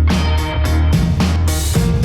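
Background music: an upbeat band track with guitar, bass and a steady beat.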